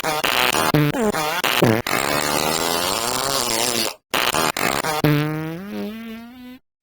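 A run of loud, pitched, sputtering farts: several short ones that bend in pitch, then a longer wavering one. After a brief break comes a long drawn-out fart that rises slightly in pitch and fades away.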